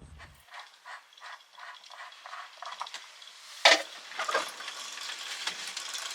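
Hand-tool work on the fittings of an old electric water boiler during its removal: a run of even rasping strokes, about three a second, like a wrench being worked, then a loud metallic clank about four seconds in and further clattering.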